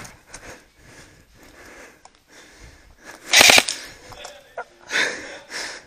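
A player breathing hard with rustling movement noise on a body-worn camera, broken by one short, loud burst about three and a half seconds in.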